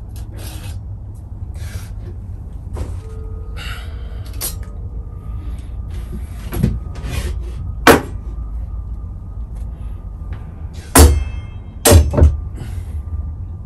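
Stainless-steel chimney pipe sections and fittings handled and set down on a wooden bench: scattered clicks and a few sharp clunks, the loudest near the end, over a steady low hum.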